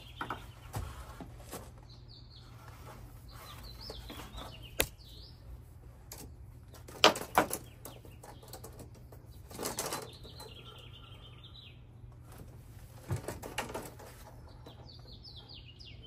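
Fiberglass fish sticks being pushed and fed through a drilled hole in wooden deck framing: scattered scrapes and knocks, the loudest a cluster about seven seconds in and a short rustle near ten seconds. Small birds chirp in short falling notes in the background.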